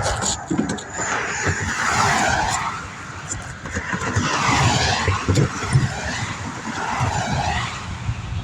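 Interstate traffic going past close by: the hiss of tyres on the road swells and fades three times as vehicles pass, over a steady low rumble.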